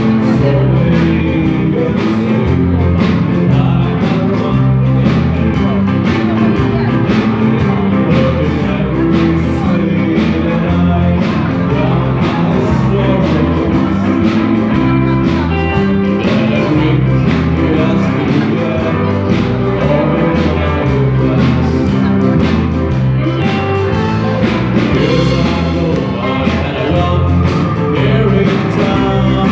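A live band playing guitar-based rock music with a steady beat and some singing.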